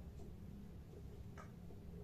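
Low steady hum with one short, sharp click about one and a half seconds in and a fainter tick just after the start.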